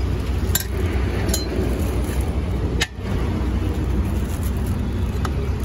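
Street traffic noise: a steady low rumble, with a few brief clicks.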